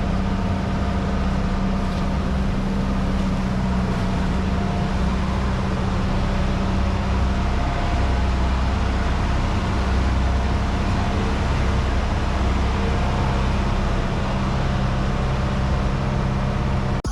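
A boat engine running steadily at a constant speed, with a level drone and a wash of noise over it.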